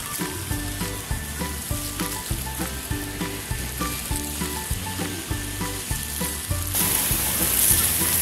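Music with a steady beat plays alongside the hiss of splashing fountain water jets. The hiss gets much louder near the end, as the ground jets come close.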